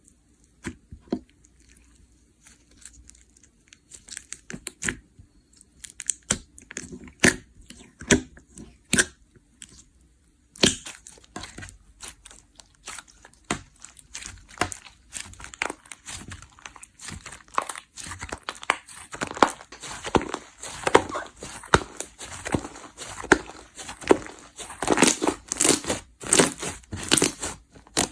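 Slime being squeezed and pressed by hand, giving pops and crackles: scattered clicks at first, then from about ten seconds in a denser, louder run of crackling pops.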